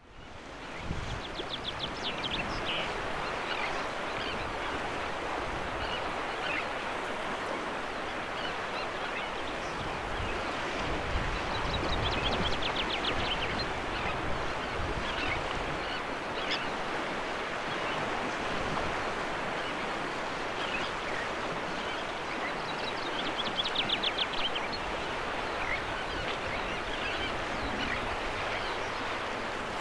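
Steady wash of wind and choppy estuary water, with a common chaffinch singing three trilled phrases about ten seconds apart and scattered short calls of Sandwich terns.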